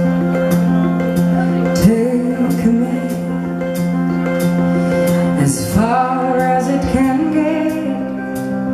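Live band music: a woman singing two slow phrases into a microphone over steady held chords, with a faint, regular ticking in the high end.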